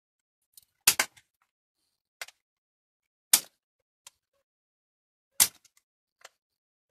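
Separate sharp clicks and clacks of hand tools (pliers, an adjustable wrench) and a bicycle pedal being handled and set down on a workbench while the pedal is taken apart. There are about seven of them, the loudest about one second in, a little over three seconds in, and about five and a half seconds in.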